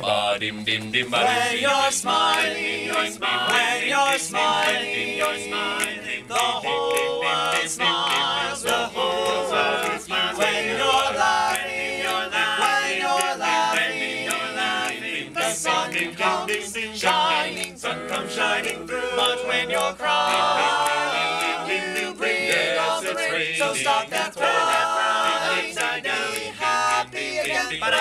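Male a cappella group singing in close harmony, without instruments.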